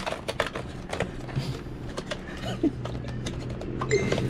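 Product packaging being opened and handled by hand: a run of irregular clicks, taps and scrapes of cardboard and plastic, over a low steady hum.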